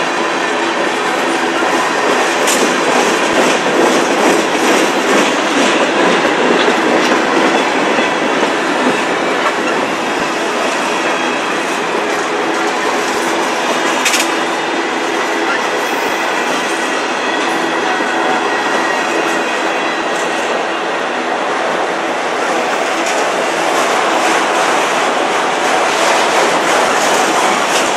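Freight train of tank cars and autoracks rolling past close by: steady noise of steel wheels on rail, with clickety-clack and the odd sharp click over the rail joints. A faint thin squeal from the wheels runs through it.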